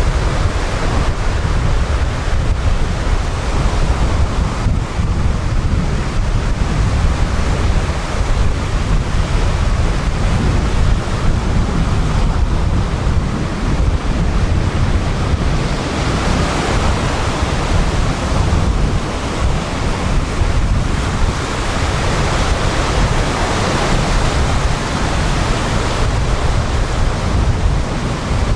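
Sea surf breaking and washing up a coarse sandy beach in a continuous wash, swelling louder a little past halfway, with wind rumbling on the microphone.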